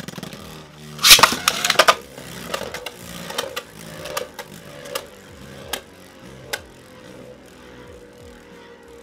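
Xcalius X3 and Noctemis N3 Beyblade Burst tops spinning and clashing in a plastic stadium: a rapid flurry of hard plastic hits about a second in, then single sharp knocks every half second or so that thin out and stop about six and a half seconds in. Under them runs a steady whirring hum that slowly drops in pitch as the tops lose spin.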